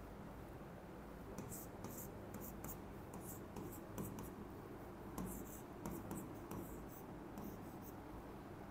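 Writing strokes: a faint run of short, irregular scratches beginning about a second and a half in, over a low steady hum.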